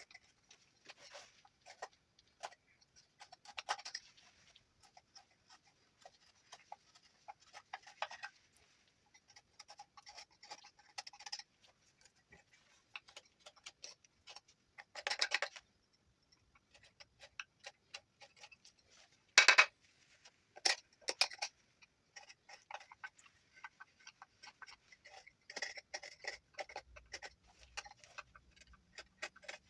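Knife whittling juniper wood: irregular short scraping cuts and small clicks, with a sharper knock about two-thirds of the way through.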